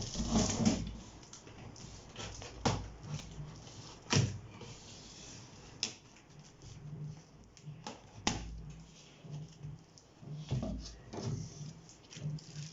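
Packaging being handled while a keyboard is unboxed: scattered sharp knocks and clicks, a few seconds apart, over low rustling.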